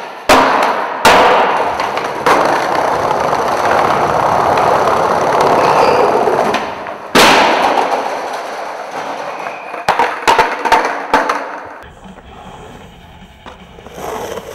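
Skateboard popping for a trick down stairs, then hard slams of board and rider on a tile floor about a second in and again around seven seconds, with loud wheel noise rolling on the tiles in between, echoing in a tiled hall. A few lighter board clacks follow, then quieter skatepark sound near the end.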